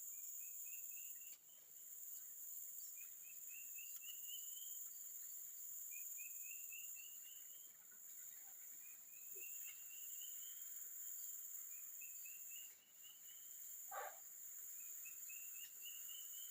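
Steady high-pitched insect chorus with a repeated call of six or so short notes stepping upward in pitch, coming back every two to three seconds. About fourteen seconds in there is one short, louder call, the loudest sound in the stretch.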